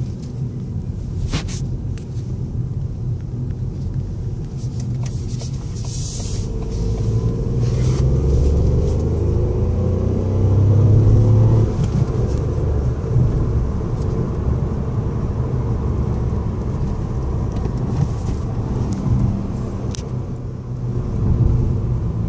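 Inside the cabin, the Ford Fiesta's 1.0-litre EcoBoost turbocharged three-cylinder engine pulls the car away under acceleration, rising in pitch and loudest about 8 to 12 seconds in. It then settles into steady cruising with a low road rumble.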